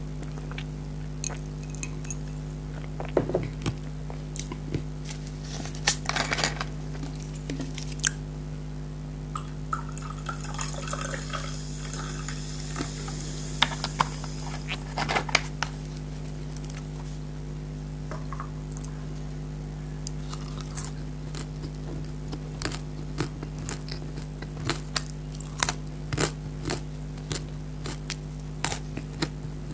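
Close-miked mukbang eating sounds: scattered crunches, clicks and wet chewing noises from a person eating, with a few seconds of hissing noise near the middle, over a steady low hum.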